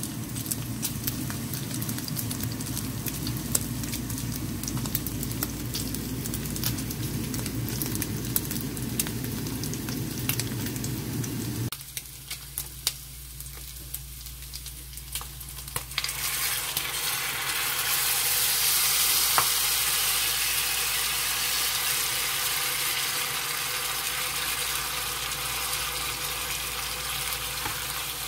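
Pork front-leg pieces sizzling and crackling in their rendered fat in a frying pan, with a low hum under them for the first part. About two-thirds of the way through the sizzle jumps suddenly to a much louder, hissing fry as kimchi goes into the hot pork fat, then settles to a steady sizzle as it is stirred.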